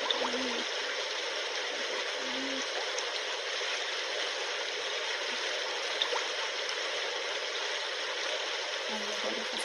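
A steady, even rushing hiss of a 'womb sound' white-noise track played from a mobile phone to settle a baby to sleep.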